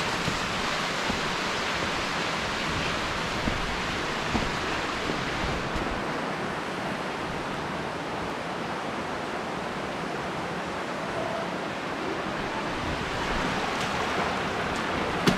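Underground river rushing through a cave: a steady, even rush of flowing water.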